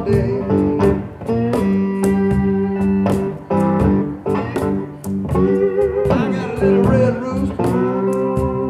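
Slide guitar on an electric guitar playing a slow blues riff: picked notes that are held and glide up and down in pitch under the slide.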